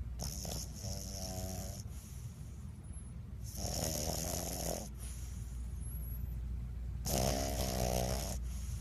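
Bulldog snoring in its sleep: three long snores, one about every three and a half seconds.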